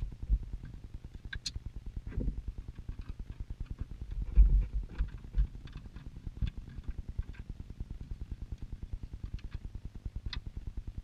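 Phillips screwdriver backing out the two screws that hold a glove box latch: a fast, even clicking, with a few duller knocks from handling.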